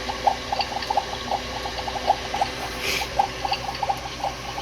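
Dollar Tree bubbling cauldron running with soapy water: irregular gurgling blips of air bubbling through the liquid, several a second, over a faint steady pump hum.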